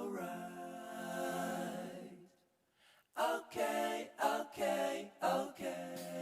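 Background music of a solo singing voice with little or no accompaniment: one long held note, a brief pause about two and a half seconds in, then several short sung phrases.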